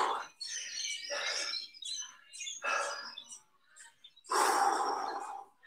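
A person breathing hard in about four loud, breathy exhalations during a strenuous static hold with arms held out sideways.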